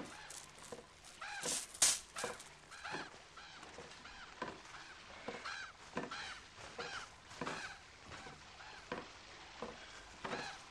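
Geese honking over and over, short rising-and-falling calls about twice a second. A couple of sharp, clacking noises stand out loudest just before two seconds in.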